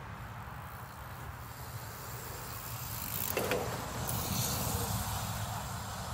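Mountain bike tyres rolling and crunching over packed dirt as the bike passes close, the loudest crunch about three and a half seconds in, followed by a rushing hiss. A steady low wind rumble on the microphone runs underneath.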